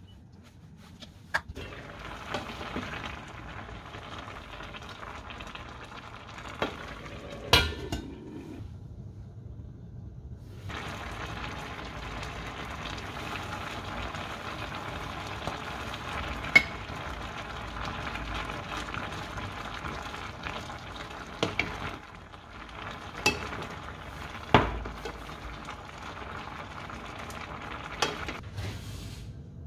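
Braised pollock in spicy sauce bubbling and sizzling in a stainless steel pan, a steady hiss with a brief break about a third of the way in. Sharp clinks of a lid or utensil against the pan come now and then, the loudest about a quarter and just over half of the way in.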